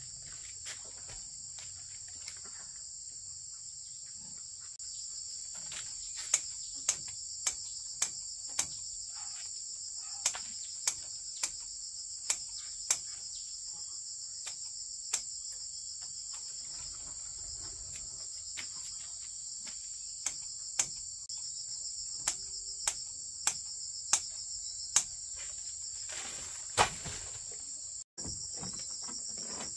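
A steady, high insect chorus, over which come a run of sharp knocks spaced about half a second to a second apart, in two spells.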